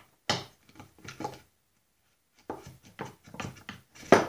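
Steel roller chain and sprockets of a Snapper riding mower's chain case clinking and knocking as they are handled and fitted by hand: a few scattered clicks, a pause of about a second, then more clicks ending in a sharp knock about four seconds in.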